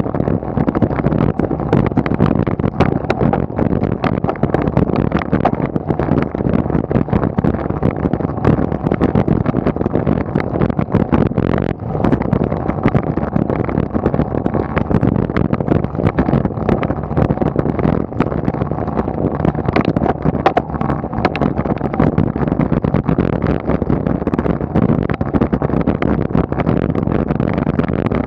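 Steady wind and road noise on the microphone of a bike-mounted camera as a road bike climbs at about 20 km/h, with frequent small clicks.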